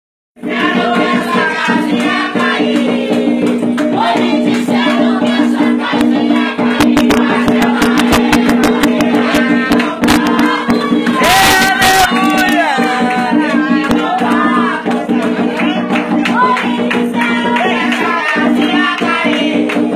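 Group singing of a religious chant over percussion, with shaken rattles and sharp hits. A brief loud rush of noise comes about eleven seconds in.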